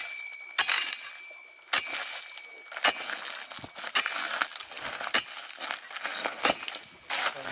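A hole being chopped in pond ice: a tool striking the ice about once a second, each blow cracking with a glassy clink of ice chips.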